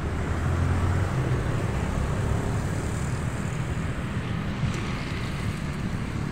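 Steady road traffic noise from passing vehicles, slightly louder in the first couple of seconds.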